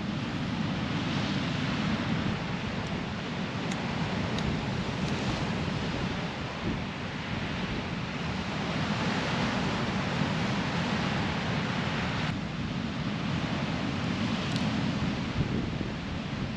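Steady rushing noise, like wind or water, with a few faint clicks scattered through it.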